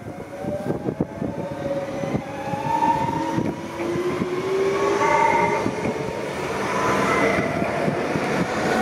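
Electric Renfe commuter train moving along the platform and gathering speed, its traction motors whining in several tones that rise steadily in pitch. Wheel clatter runs underneath and grows louder.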